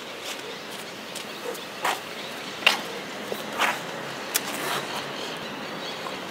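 Footsteps on pavement approaching, about five short scuffs and clicks roughly a second apart, over low outdoor street ambience.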